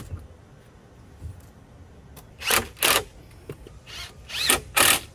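Cordless drill run in about five short bursts in the second half, driving screws into a wooden table frame, its motor spinning up and down with each burst.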